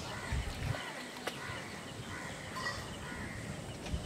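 Quiet rural outdoor ambience with faint bird calls, and one light click a little over a second in.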